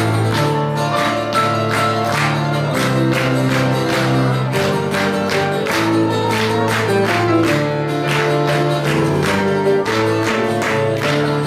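A Greek song played live on bouzouki, guitar and keyboard: a steady plucked rhythm of about three strokes a second over held notes.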